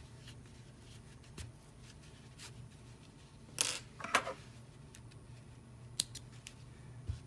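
Hands handling a yarn-wrapped temari ball and its marking thread: two short rasping rubs a little past the middle, then a few small sharp clicks near the end.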